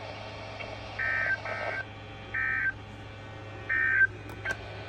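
Four short touch-tone (DTMF) beeps carried over a weather radio broadcast, each about a third of a second long, spread over about three seconds. A steady low hum and hiss run underneath, and two faint clicks come near the end.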